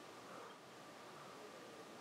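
Near silence: faint steady hiss of room tone with a thin, faint hum.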